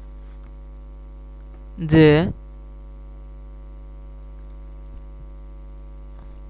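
Steady electrical mains hum on the recording: a low hum with a row of steady higher tones over it. One short spoken word breaks in about two seconds in.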